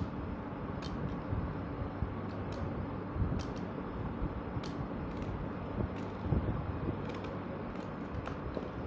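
Kitchen knife paring the tough, spiny rind off an unripe green jackfruit: irregular crisp clicks and scrapes as the blade cuts, over a steady low hum.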